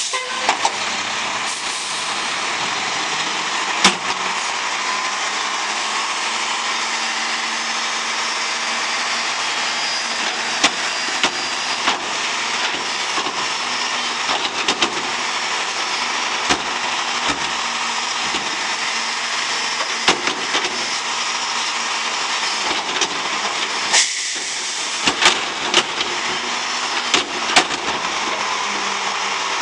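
Mack MRU garbage truck with a New Way Mammoth front-loader body running steadily as its hydraulic forks lift a 2-yard steel container over the cab and tip it into the hopper. Sharp metal bangs and clanks sound through it, coming thick and fast near the end as the container tips over the hopper.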